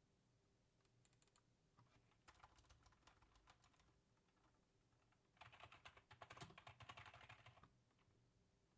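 Faint rapid keyboard typing taps in two runs: a short, scattered run about two seconds in, and a denser run of about two seconds past the middle.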